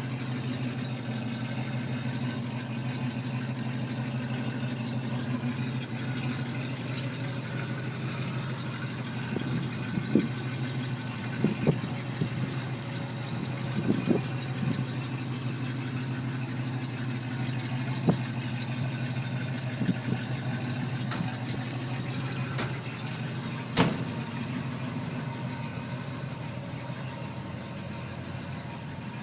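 1956 Chevrolet Bel Air's engine idling steadily, with a handful of short sharp clicks or knocks over the middle part.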